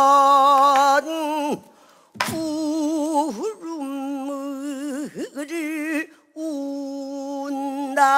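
Female pansori singer's voice holding long drawn-out notes without words, with a wide, slow vibrato and two deep downward swoops in the middle, in a weeping lament. The line breaks off twice for a breath.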